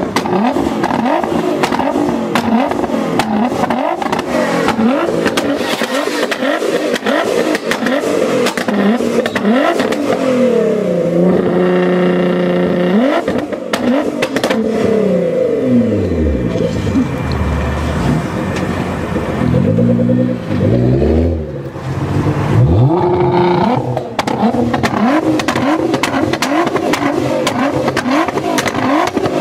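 Nissan GT-R R35's twin-turbo V6 revved hard while stationary, in quick blips that climb and drop away with sharp crackling from the exhaust between them. Near the middle it holds high revs for about two seconds, then falls back.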